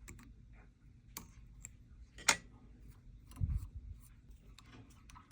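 Scattered small clicks and ticks of hands and tools at a fly-tying bench, with one sharp click a little past two seconds in and a low thump about a second later.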